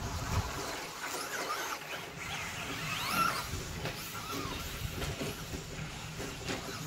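RC short-course trucks (Traxxas Slash 2WD) racing, their electric motors whining up and down in pitch with the throttle. There is one clear rising whine about three seconds in.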